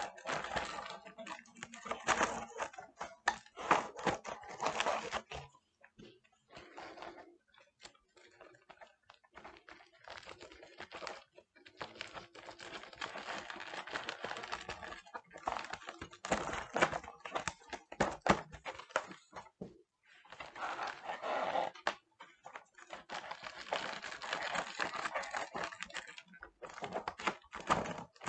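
Foil balloons crinkling and rustling as they are handled while a latex modelling balloon is tied around their corners, with scattered small taps. It comes in irregular spells, with a quieter stretch of several seconds about a quarter of the way in.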